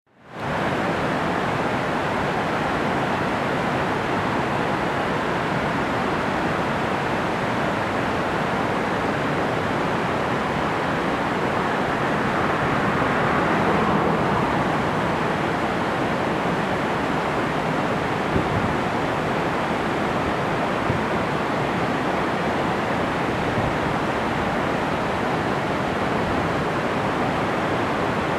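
Fast white water rushing, a dense steady hiss that fades in at the very start and swells slightly about halfway through.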